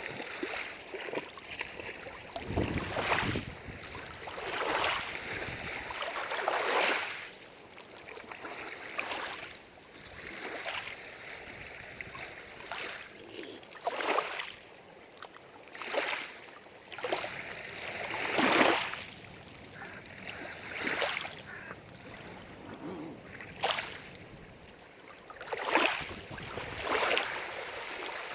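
Small waves lapping and splashing irregularly against the lake shore, a wash every second or two.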